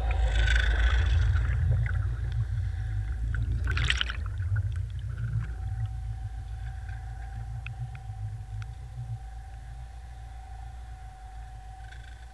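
Air bubbles and water rushing around a submerged camera as it sinks through a lake: a deep rumble with bubbling, loud at first and fading. A sharp splash-like burst comes about four seconds in, and a steady thin tone sets in a little later.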